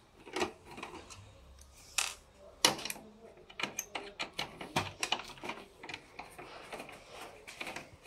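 Irregular clicks and knocks of hard plastic parts being handled as an HP LaserJet 1020 printer is taken apart.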